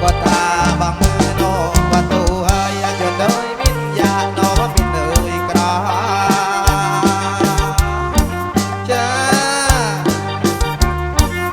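Amplified kantrum band playing an instrumental passage: a steady drum beat over heavy bass, with a lead melody that bends and slides in pitch.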